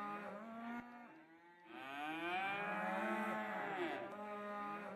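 Cattle mooing: a few long, drawn-out moos, the longest lasting about two seconds in the middle.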